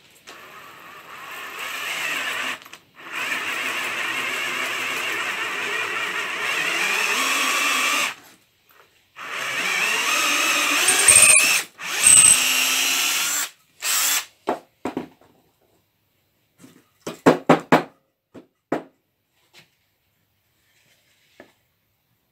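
Cordless drill boring a hole through a thick piece of softwood. It runs in long stretches broken by short stops, then gives a few brief trigger bursts. A quick series of knocks follows.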